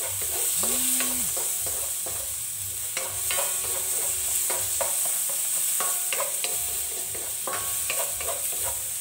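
Onion, garlic, ginger and tomato sizzling in hot oil in a stainless steel wok while a spatula stirs them, with frequent clicks and scrapes of the spatula against the pan. It is the sauté stage, the tomatoes softening.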